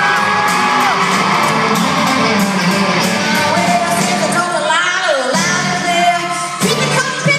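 Live country music: a band playing with women singing, while the crowd cheers and whoops. The voice line stands out more clearly from about halfway through.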